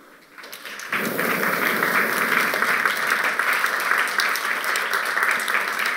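Audience applauding. A few scattered claps come about a third of a second in and swell into full, steady applause about a second in.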